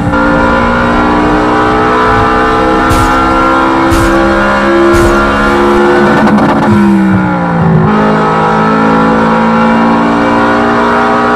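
RC short course truck's motor heard from onboard at racing speed, a steady whine that drops in pitch about six to eight seconds in as the truck slows, then holds again.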